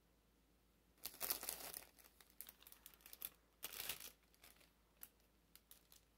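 Clear cellophane flower sleeves around a rose bouquet crinkling as they are handled: a long rustle about a second in, a shorter one near the middle, then scattered small crackles.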